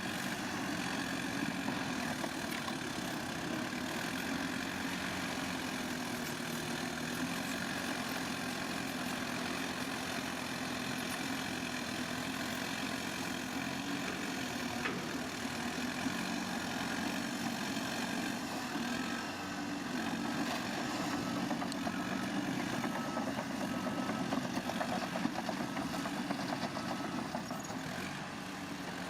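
Heavy construction machine's diesel engine running steadily at a constant speed.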